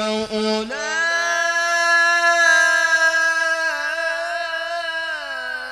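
Male qari's solo voice in melodic Quran recitation (tilawah). After a short break he leaps up, just under a second in, to a long high held note. The note breaks into rapid wavering ornaments from about four seconds and steps down near the end.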